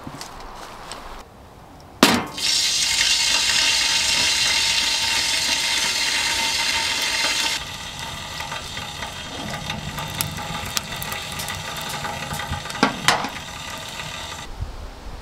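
A steel kettle lid is set in place, with a sharp metal clank about two seconds in, followed by a loud, steady hiss for about five seconds. After that, a wood fire in a small steel camp stove crackles and ticks quietly, with a couple of louder snaps near the end.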